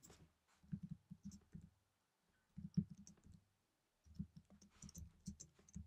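Computer keyboard typing: faint keystrokes in short, irregular runs with pauses between them.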